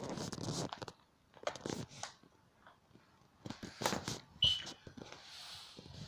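Irregular scuffling and knocking as a cat and a large dog move about on a wooden floor, with a brief high squeak about four and a half seconds in.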